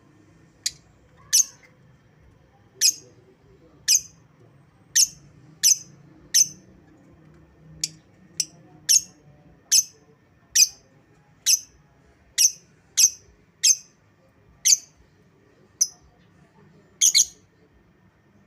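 Lovebird giving short, sharp, high-pitched chirps one after another, around twenty in all, spaced about half a second to a second apart.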